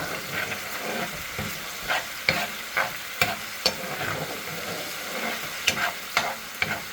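Onions sizzling as they sauté in a pan, with a utensil stirring them and clicking and scraping against the pan at irregular intervals.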